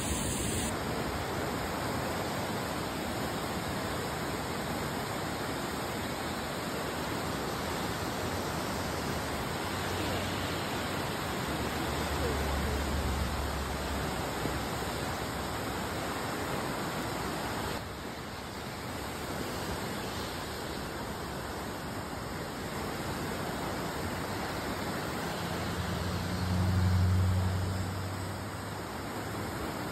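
Muddy floodwater rushing along a washed-out road, a steady rushing noise that drops slightly in level a little over halfway through. A low rumble comes briefly near the middle and again, louder, near the end.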